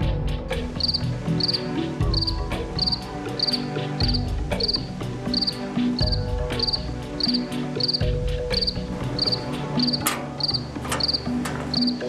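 A cricket chirping steadily, about two chirps a second, over a low drone that shifts every few seconds, with a couple of sharp clicks near the end.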